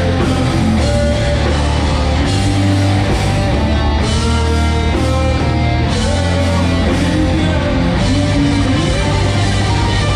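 Viking metal band playing a song loud: distorted electric guitars, bass and drums.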